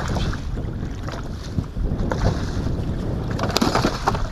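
Wind buffeting the microphone on a fishing boat out on choppy open water, with waves washing against the hull and a louder rush of water near the end.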